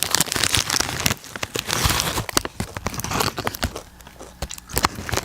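Doritos chip bag crinkling and rustling as it is handled, a continuous run of sharp crackles.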